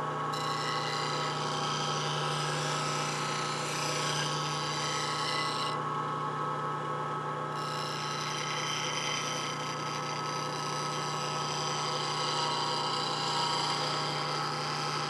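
Bench grinder running steadily while a fingernail-grind spindle gouge is ground against the wheel to sharpen its bevel: a steady motor hum under a hissing grind, which stops for about a second and a half around six seconds in and then resumes.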